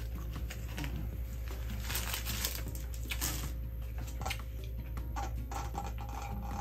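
Eating sounds: a paper-wrapped sausage egg muffin is bitten, with the wrapper crinkling, and then iced coffee is sipped through a straw near the end. A steady low hum runs underneath.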